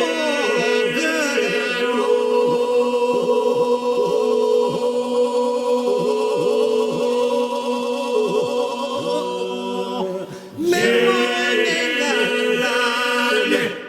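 A group of voices singing an Albanian polyphonic folk song a cappella: moving vocal lines over a steady held drone. The singing drops away briefly about ten seconds in, then the full group comes back in.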